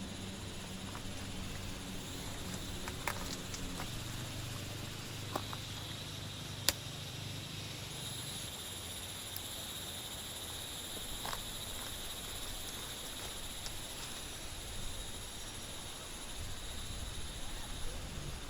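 Steady rain hiss with scattered small drip ticks and one sharper tick about seven seconds in; a low background hum stops about eight seconds in.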